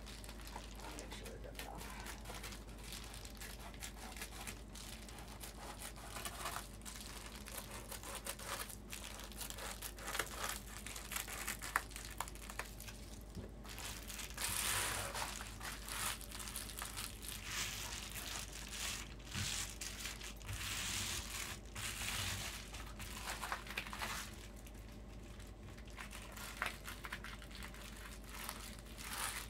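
Reflectix foil bubble-wrap insulation crinkling as the sheet is handled and pressed into a window's track, in irregular spells of crackly rustle, louder at times.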